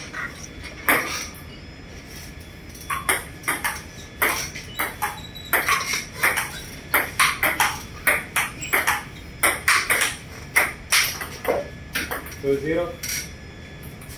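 Table tennis rally: the ball clicks sharply off paddles and table about three times a second in a long exchange that stops about three seconds before the end, followed by a short shout.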